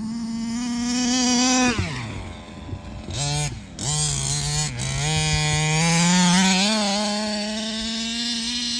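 Two-stroke petrol engine of a Rovan Baja 5B 1/5-scale RC buggy running. It holds a steady high note, drops sharply about two seconds in, then picks up again and climbs back to hold a high note near the end.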